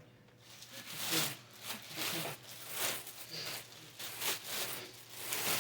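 Packaging being handled and torn open during an unboxing: irregular rustling, scraping and tearing.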